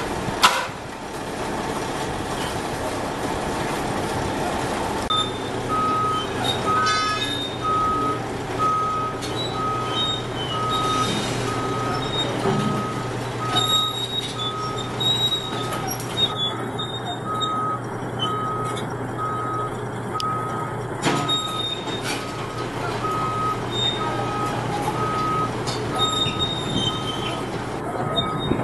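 A reversing alarm beeping evenly, a little over once a second, from about five seconds in. Under it a heavy diesel engine runs steadily, and one sharp bang comes about half a second in.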